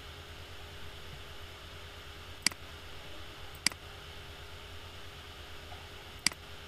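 Three short, sharp computer mouse clicks, the second about a second after the first and the third some two and a half seconds later, over a steady low hum and hiss.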